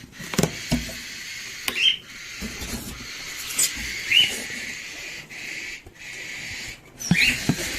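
Handling knocks as the cardboard incubator holding the eggs is opened and checked, over a steady hiss. Several short, high bird chirps come in between the knocks.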